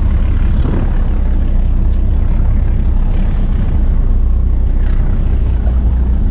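Steady low drone of a fast passenger ship's engines, heard on board while it is under way.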